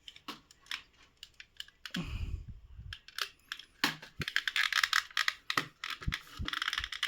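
Plastic parts of a mosquito zapper racket being handled and pried apart: a rapid run of sharp clicks and taps, with a low thump about two seconds in and the clicking growing busier from about four seconds.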